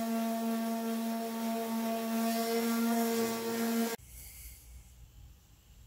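Handheld electric detail sander running steadily on the edge of an ABS plastic shell: a constant motor hum under the hiss of the sandpaper. It stops abruptly about four seconds in, leaving only faint low room noise.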